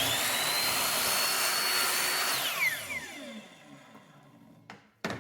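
Electric saw motor whining up to speed and running steadily while cutting a 45-degree angle in a wooden baseboard, then winding down with a falling whine after the trigger is released. Two short knocks come near the end.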